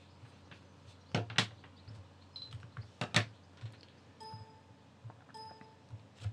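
Scattered sharp clicks and knocks, loudest a little after a second in and again around three seconds in, then two short identical electronic beeps about a second apart.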